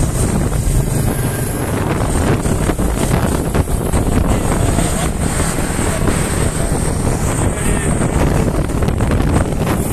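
Small motorcycle engines running steadily at road speed under heavy wind buffeting on the microphone of a moving motorcycle.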